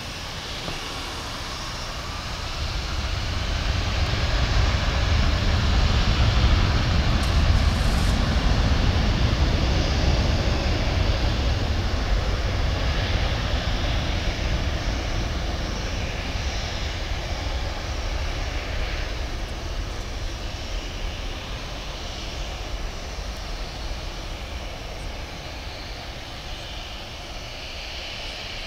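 Jet engines of a Boeing 737-700, CFM56-7B turbofans, running at takeoff thrust: a deep, steady rumble with a broad hiss. It swells to its loudest about six seconds in, then slowly fades.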